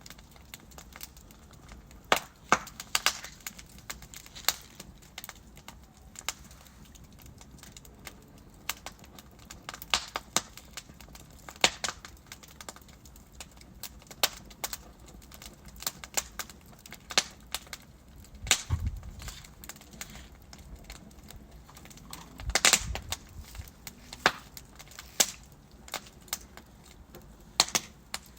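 Wood fire burning in a fireplace: a soft steady hiss with irregular crackles and sharp pops scattered throughout, some of them loud snaps. A couple of the pops, about two-thirds and four-fifths of the way through, are deeper and fuller.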